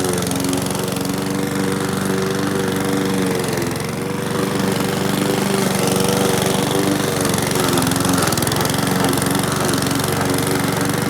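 Walk-behind gas lawn mower engine running under load while cutting thick, tall grass, its pitch sagging briefly about four seconds in and again near eight seconds as the engine bogs down in the heavy grass.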